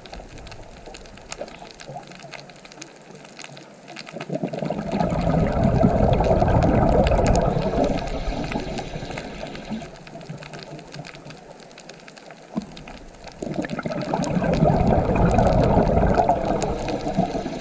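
Ocean waves washing in twice, each a rush of water that swells up and fades away over several seconds, with a quieter hiss of water in between.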